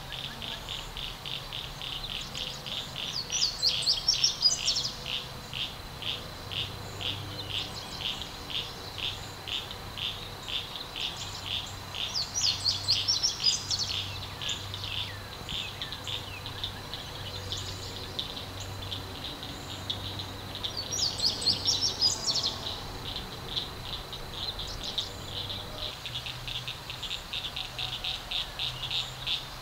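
Insect chirping steadily at a high pitch, about two to three chirps a second, with a songbird singing over it in three short, louder bursts roughly nine seconds apart.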